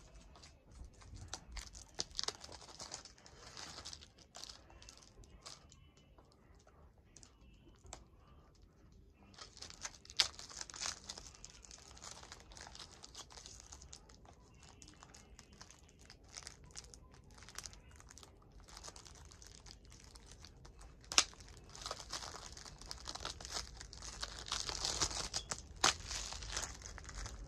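Plastic shrink-wrap crinkling and tearing as it is cut and pulled off a Blu-ray case, with a few sharp clicks among the rustling.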